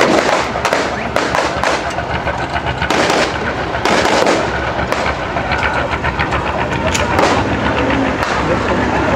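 Blank gunfire from rifles and machine guns, many shots in quick irregular succession, over the steady low running of a Sherman tank's engine.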